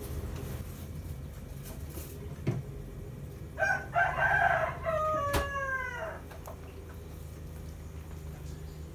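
A rooster crows once, starting about three and a half seconds in and lasting about two and a half seconds, its last note sliding down in pitch. A steady low hum runs underneath, with a sharp click near the end of the crow.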